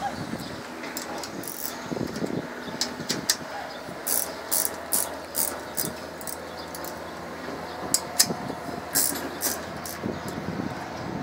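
A series of sharp metallic clicks and taps as a screwdriver works the fasteners on the sheet-metal cabinet panel of a ground air-conditioning unit, over a steady machinery hum. The sharpest clicks come about three seconds in and again about eight seconds in.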